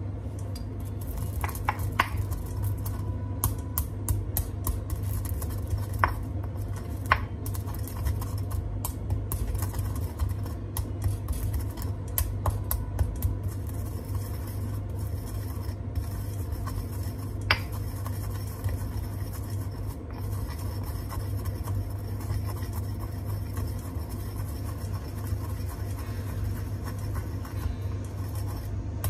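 Granite pestle crushing and grinding peppercorns in a granite mortar: frequent sharp cracks in the first half as the whole corns break, then a steadier scraping grind as they turn to powder. A steady low hum runs underneath.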